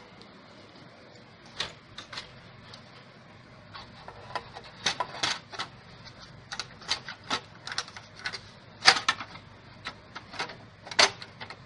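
Irregular sharp clicks and taps, a dozen or so at uneven intervals and loudest about nine and eleven seconds in, from hands handling hardware.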